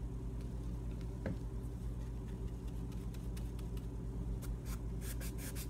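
A steady low hum with a faint click about a second in, then, near the end, a quick run of short scratchy paintbrush strokes across the purse's glittered surface.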